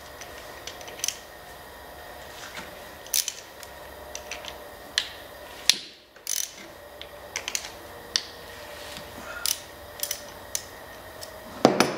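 Hand socket ratchet clicking in short, irregular spells as the nuts and bolt holding a snowmobile thermostat housing are worked loose, with light metal clinks of the tool between.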